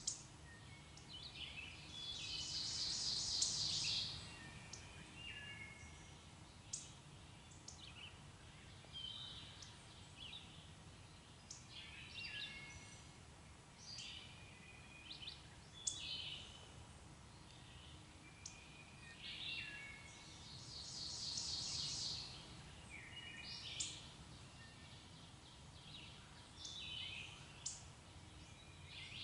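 Several songbirds singing and chirping, with short varied phrases throughout and a louder, long rapid trill about two seconds in and again about twenty seconds in.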